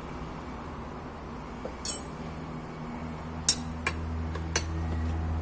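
Steel gearbox gears and shafts clinking against each other and the aluminium crankcase as they are fitted into a motorcycle engine: about four sharp metallic clinks, the loudest about three and a half seconds in. A low steady hum rises in the background from about halfway.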